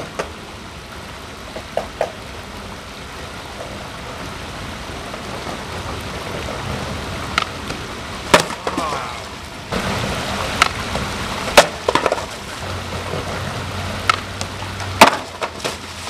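Skateboard knocking and clacking sharply against concrete about eight times, over the steady rush of a running stream. Near the end, a splash as the skater lands in the water.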